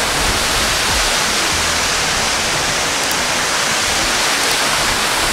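Tall waterfall pouring down a rock face: a loud, steady rush of falling water.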